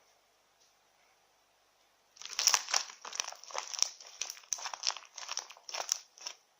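Freshly made clear slime of transparent glue being squeezed and worked by hand, giving a quick run of short crackles and pops, several a second, that starts about two seconds in after near silence.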